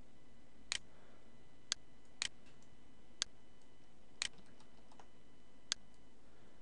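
Six sharp single clicks of a computer mouse, unevenly spaced about half a second to a second and a half apart, over a faint steady hiss.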